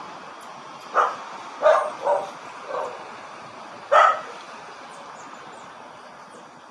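A dog barking five short times over about three seconds, the loudest barks near the start and about four seconds in.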